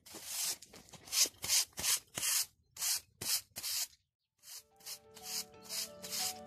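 A broom sweeping a terrace in quick strokes, about two a second, with a short pause about four seconds in.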